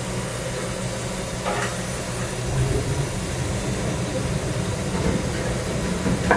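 Water running in a thin stream into a large stainless-steel kettle of raw chicken pieces, a steady hiss over a low steady hum. A knock near the end as a wooden paddle goes into the pan.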